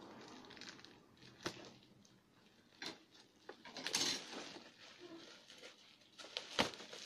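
Plastic bubble wrap on a parcel crinkling and rustling as hands pull at it, with several sharp crackles. The wrapping is tightly sealed.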